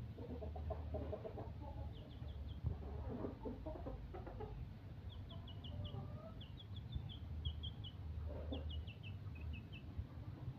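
Young chicken peeping: several runs of short, quick, high falling chirps, with lower clucking calls between them.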